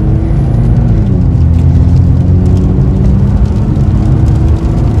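2021 Chevy Colorado's 2.8-litre Duramax four-cylinder turbodiesel pulling under hard acceleration, heard from inside the cab. The engine note drops as the transmission upshifts about a second in and again near the end.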